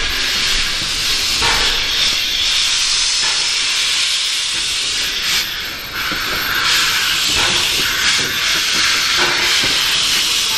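Small steam tank locomotive hissing steam as it moves slowly along the track, a loud steady hiss with some swells.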